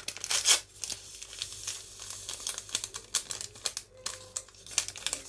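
Small paper sachet of vanilla sugar crinkling and rustling as it is handled and tipped out over a bowl, a dense run of crackles with a louder patch about half a second in.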